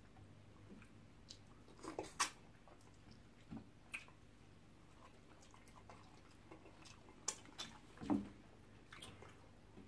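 Eating sounds from two people eating soft starch and egusi soup with their hands: scattered short wet clicks and smacks of chewing and fingers in the food. The louder ones come about two seconds in and again around seven to eight seconds.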